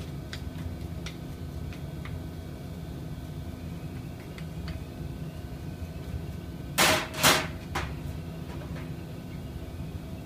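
Small metal parts clinking lightly as a mixer's mixing bowl is cleaned, over a steady hum of workshop machinery. About seven seconds in, two short, loud hissing bursts a fraction of a second apart, then a smaller one.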